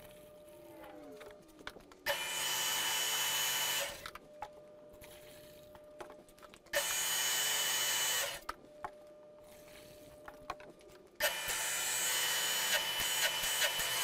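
Hotsy 795 pressure washer running in three bursts of about two to three seconds each, with quiet gaps between: the pump and motor run with a hiss of spray while the trigger is squeezed, then stop when it is released. The trigger is being cycled to draw antifreeze from the float tank through the pump and bypass.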